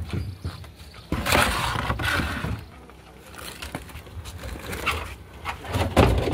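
Spiny lobsters' spiny shells and legs scraping and clattering against each other and the boat's fibreglass as they are pulled out of the hold and piled on the deck, with a louder stretch of scraping about a second in.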